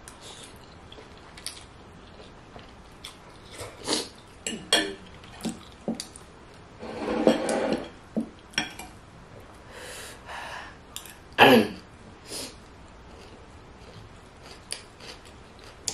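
A metal fork and spoon clinking and scraping against a plate in scattered sharp knocks, while spicy noodles are eaten with close mouth sounds. The loudest knock comes about eleven and a half seconds in.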